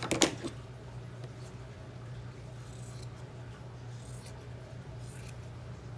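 Scissors snipping through doubled cotton fabric, a few faint cuts spread through, over a steady low hum. A sharp knock just after the start is the loudest sound.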